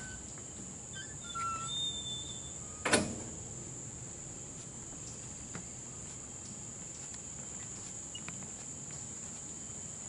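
Steady, high-pitched drone of rainforest insects, with a few short bird whistles between one and two seconds in and a single sharp knock about three seconds in.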